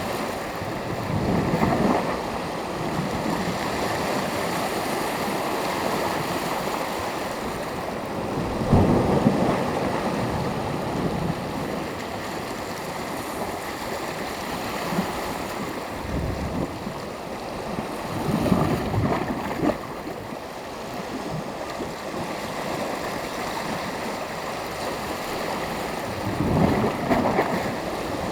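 Sea surf: small waves breaking and washing up on the shore over a steady rush of water, with a louder wave about every eight to nine seconds, four in all.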